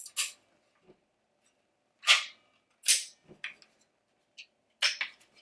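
Sharp clicks and snaps from handling a G&G ARP9 airsoft rifle, most likely its metal flip-up sights being flipped up and down. The clicks come irregularly, about seven in all.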